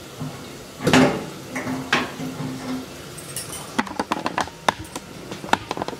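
Metal knocks and clattering of a rotisserie spit and oven rack as a roast chicken on the spit is handled and lifted out of an electric oven-toaster-grill: a loud knock about a second in, another a second later, then a quick run of light clicks and rattles in the second half.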